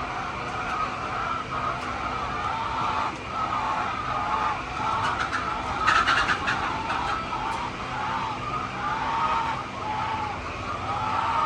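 A flock of laying hens clucking and calling, many short arching calls overlapping without a break. A quick run of sharp clicks comes about six seconds in.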